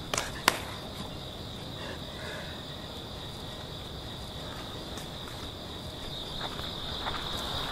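Crickets chirping in a steady, continuous high trill. Two sharp smacks sound within the first half second.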